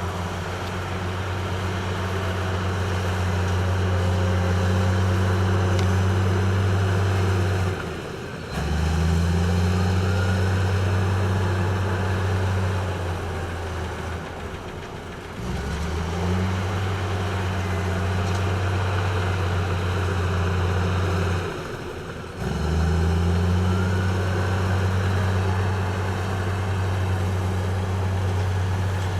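Heavy diesel engine of construction machinery running steadily, dipping briefly three times and each time climbing back up in pitch.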